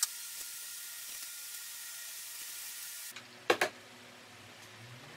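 Steady hiss just after an angle grinder stops cutting, then a quieter low hum with two sharp knocks close together about three and a half seconds in, as the cut motorcycle frame is handled.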